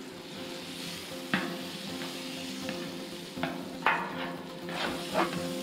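Butter and oil sizzling on a hot Blackstone flat-top griddle as a silicone spatula spreads them across the steel top, with a few sharp knocks and scrapes of the spatula against the griddle.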